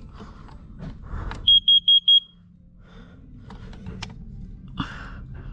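Carbon monoxide alarm sounding its test signal: four short, loud, high-pitched beeps in quick succession, the four-beep pattern that signals carbon monoxide.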